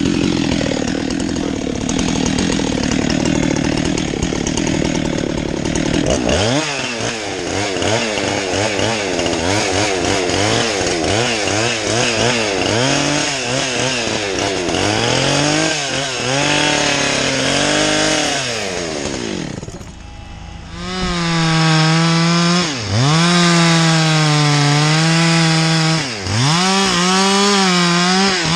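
Two-stroke chainsaw: a steadier, lower running sound at first, then the engine revved up and down over and over, and from about 21 seconds in held at high speed with two brief dips in pitch.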